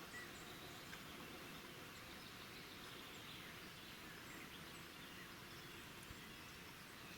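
Faint outdoor ambience: a steady soft hiss with a few faint, short chirps scattered through it.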